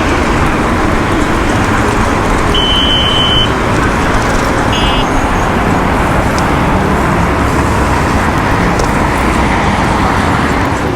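Steady rumble and wind noise from riding an electric skateboard through traffic. A short high beep comes about three seconds in, and a second, shorter one about five seconds in.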